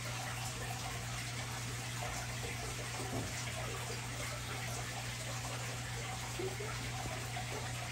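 Aquarium filter running: steady trickling and splashing water over a low, steady hum.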